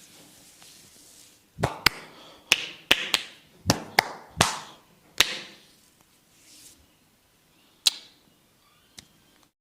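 A masseur's hands slapping and chopping on bare skin: a quick run of about nine sharp slaps over three or four seconds, then one more a few seconds later and a faint last tap.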